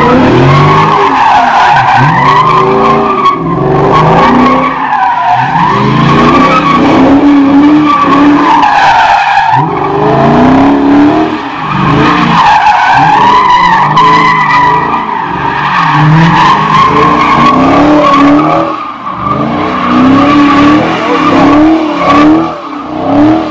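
A Chrysler 300 with a 6.4-litre Hemi V8 doing doughnuts: a continuous, wavering tyre squeal over the engine revving up and down in repeated surges as the spinning rear tyres burn and smoke.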